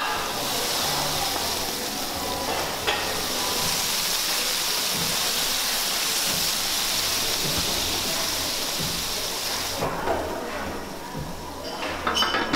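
Water from a squeeze bottle sizzling on a hot flat-top griddle, steady until about ten seconds in, then dying down. Near the end, stainless steel lids clank as they are set down over the griddle.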